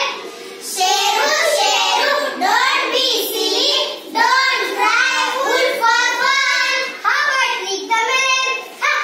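A small group of young girls singing together in unison, in phrases with short breaks between them.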